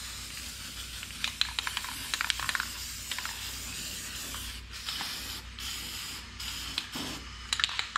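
Aerosol spray paint can spraying black paint onto a car's steel floor pan: a steady hiss in several bursts, with short breaks in the second half. A few light clicks come between bursts in the first seconds.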